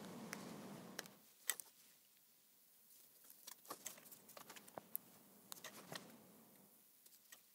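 Faint crinkling and light clicks of fingers handling 3M Command strips and peeling the paper liner off their backs. A faint low hum underneath stops about a second in.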